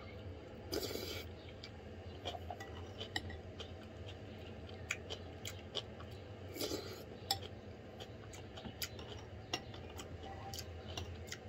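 Close-up eating sounds: a metal spoon clicking and scraping against a ceramic bowl, with chewing of spoonfuls of rice soaked in soup, over a steady low hum.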